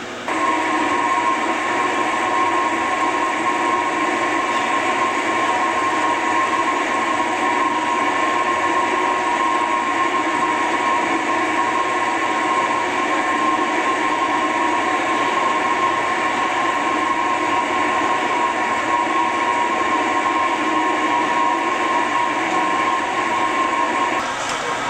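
Soybean grinder of a small automatic soymilk machine running as soaked soybeans are fed in with water: continuous, steady machine noise with a steady high whine, easing slightly near the end.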